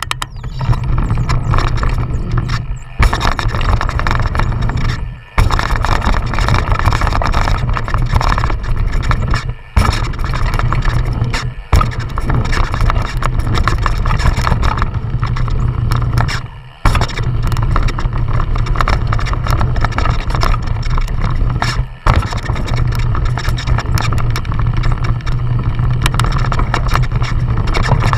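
Wind rushing over an action camera's microphone and a downhill mountain bike's knobby tyres rolling fast over a dirt trail, a loud continuous rumble broken by several brief drops in level.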